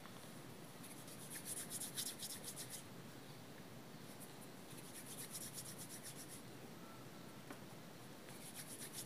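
Hands rolling small lumps of soft rice-flour dough into thin fingers, a faint rapid rubbing heard in three short spells.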